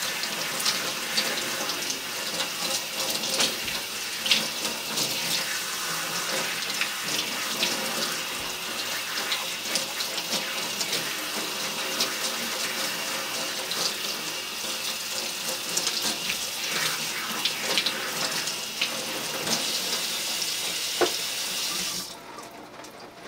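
Water running from a hose on a kitchen faucet, spraying over hair and splashing into a stainless steel sink as shampoo is rinsed out, a steady rush with small spatters. The water is shut off about a second before the end.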